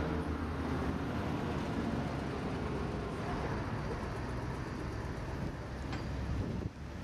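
Street traffic: cars driving past with a steady low rumble.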